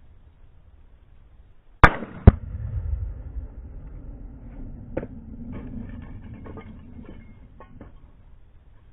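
Two gunshots about half a second apart, very loud and sharp, each followed by a low rolling echo. A few lighter clicks and knocks follow a few seconds later.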